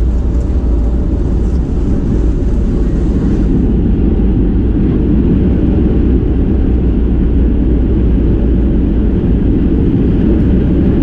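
Steady deep rumble of engine and airflow noise inside a Boeing 737 cabin; the higher hiss eases slightly about three and a half seconds in.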